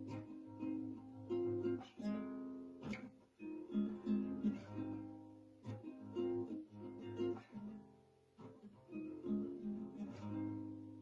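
Cordoba nylon-string classical guitar strumming chords in phrases, each strum ringing and fading before the next.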